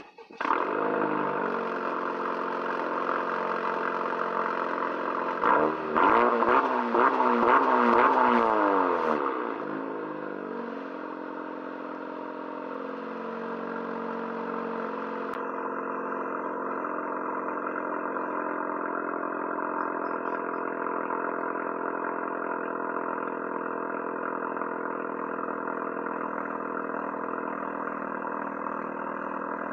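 Straight-piped Honda Civic four-cylinder, muffler and resonator removed, cold-starting: it fires just after the start and runs at a raised idle. Its pitch rises and falls several times about six to nine seconds in, the loudest part. It then settles into a steady, lower idle.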